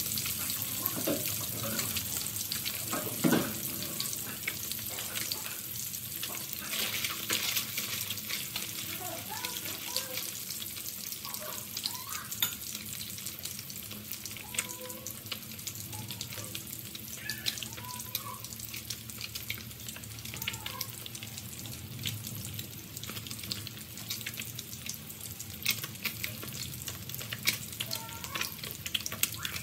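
Fish pieces deep-frying in a pan of hot oil: a steady sizzle with frequent sharp crackles.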